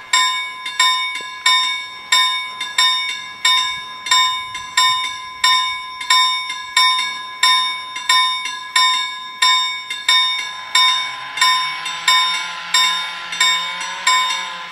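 Level-crossing warning bells ringing in a steady, even rhythm of about one and a half strikes a second, each strike ringing out and fading before the next. This signals that the crossing is activated for an approaching train.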